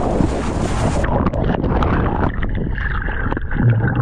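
Rushing noise of a breaking wave and spray close on a GoPro's microphone inside the barrel; about a second in it turns muffled as the camera goes under the water, leaving churning, bubbling turbulence with small clicks.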